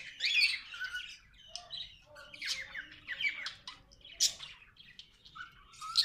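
Cockatiels, budgerigars and other small aviary birds calling: many short, high chirps and squawks, scattered and overlapping, coming in clusters with a loud squawk a little after four seconds in.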